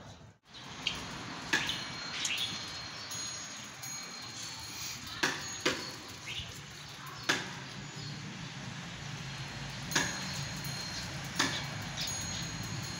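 Small metal chimes tinkling now and then, about eight separate strikes that each ring briefly at a high pitch, over a faint steady low hum.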